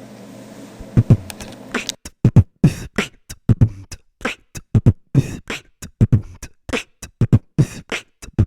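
Fast beatbox beat: mouth-made vocal percussion with deep kick-drum thumps and sharp snare and hi-hat hits, several strikes a second. It starts about a second in and gets denser a second later.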